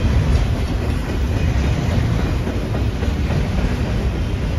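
Freight train rolling past: a steady low rumble with the clatter of its wheels on the rails.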